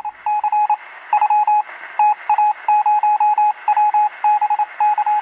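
Electronic beeping from a channel-intro sound effect: one steady tone keyed on and off in quick irregular groups of short and longer beeps, like Morse code, over a faint hiss. It is loud.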